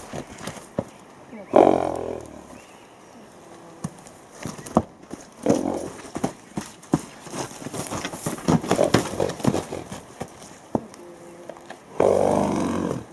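Two loud, low calls from a large farm animal, the first about a second and a half in and lasting about a second, the second near the end. Scattered soft knocks and clicks come between them.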